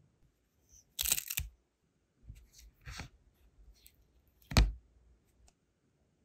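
A brass seal stamp lifted off hardened sealing wax, then the wax seal peeled off a silicone mat: a few crisp crackling, peeling sounds. The loudest come about a second in and again just past four and a half seconds.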